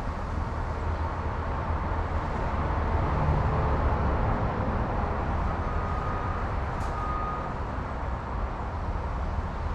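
Diesel engine of heavy equipment running steadily with a low rumble.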